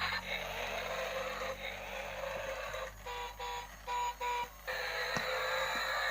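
Toy excavator robot's small built-in speaker playing tinny electronic music and sound effects, with a run of short on-off beeps about halfway through.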